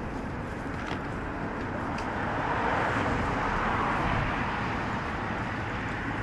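Steady city street traffic noise, with a car passing on the road that swells in the middle and fades again.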